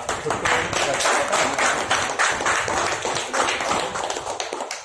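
Small group of people applauding after a speech: dense, even clapping that thins to a few scattered claps near the end.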